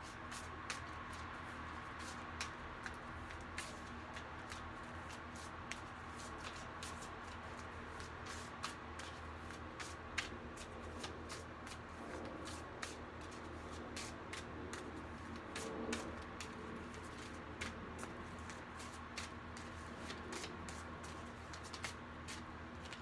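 A deck of oracle cards being shuffled by hand: a long, irregular run of soft clicks and flicks as the cards slide and snap together.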